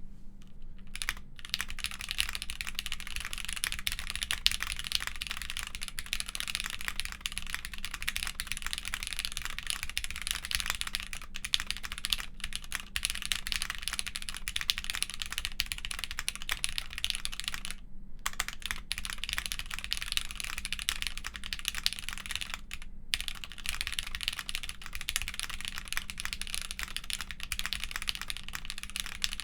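Continuous fast typing on a Cable Car Designs Angel mechanical keyboard with Gateron X switches lubed with 3203, mounted on a polypropylene plate with Linworks Burgundy keycaps. Brief pauses come about a second in, around 18 seconds and around 23 seconds.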